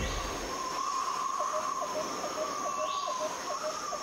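Nature ambience bed of insects and birds: a steady wavering trill with a short chirp repeating about four times a second, starting about a second and a half in. The tail of a lion's roar fades out in the first half-second.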